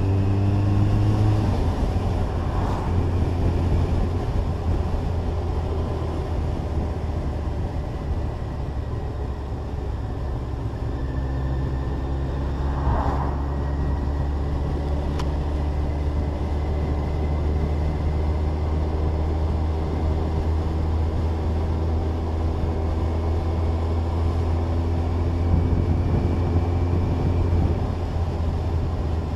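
Kawasaki ZZR1400's inline-four engine running under way, with steady wind rush. It revs up and drops back about a second and a half in, as with a gear change, then holds a steady cruise. The engine note climbs gently from about ten seconds in and drops again near the end.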